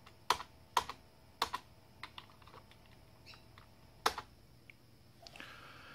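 Computer keyboard keys being pressed: several separate clicks at irregular intervals, the last sharp one about four seconds in.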